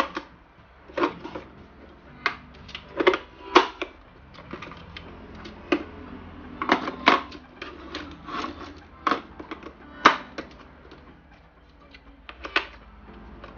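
Irregular plastic clicks and knocks of AA batteries being fitted into the battery compartment of a plastic RC transmitter, about a dozen sharp taps with a few close pairs.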